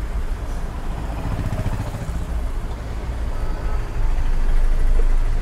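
Goods pickup truck's engine running with road noise while driving, growing louder about four seconds in.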